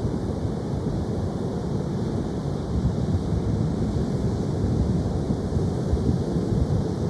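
Ocean surf as a steady wash of noise, heaviest in the low end, with no single wave break standing out. Wind is buffeting the microphone.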